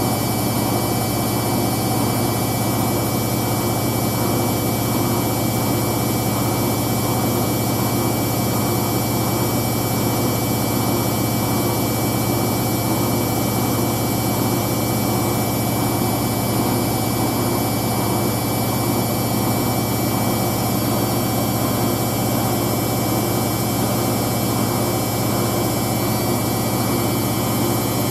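Hoover DYN9144D3X washing machine in a steady high-speed final spin with a load of towels: a constant low drone with fixed whining tones over it, not changing in speed.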